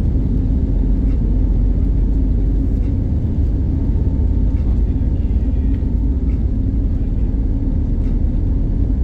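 Airbus A320 jet engines and airflow heard from inside the passenger cabin during takeoff: a loud, steady low rumble with a few faint rattles.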